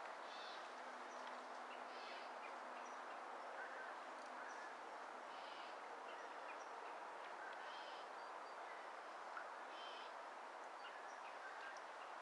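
Faint outdoor ambience: a steady hiss with short bird calls repeating every second or two.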